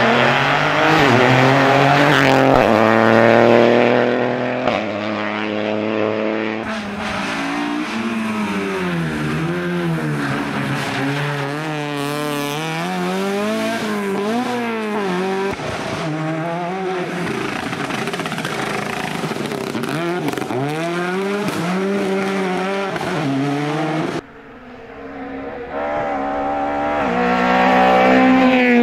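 Rally cars at full effort on a tarmac stage, passing one after another, their engines revving up and dropping back over and over through gear changes and braking for corners.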